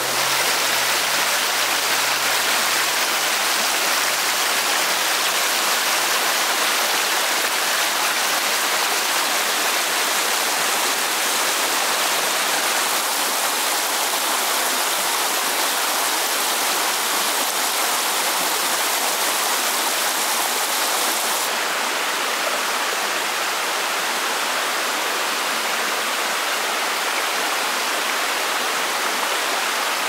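Steady rush of water from a flowing forest stream. Its highest hiss drops a little about twenty seconds in.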